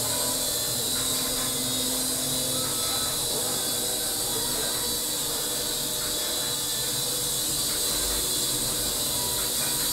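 Micro RC helicopter in flight: its small electric motors and coaxial rotors make a steady, even whirr.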